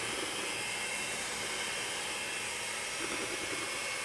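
Electric hand mixer running steadily with a thin high whine, its beaters working flour into a thick butter-and-sugar pound-cake batter in a stainless steel bowl.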